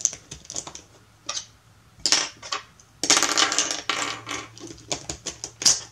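Plastic pieces of a 3x3 speed cube clicking and snapping as corner pieces are pressed into the partly assembled cube. The clicks come in quick clusters, about two seconds in and again through the fourth second, with one sharp snap near the end.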